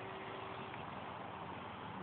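Faint, steady drone of a distant RC model biplane's motor under a steady hiss.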